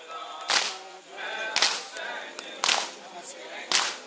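Mourners beating their chests in unison (matam): four sharp slaps about a second apart, with a nauha lament sung between them.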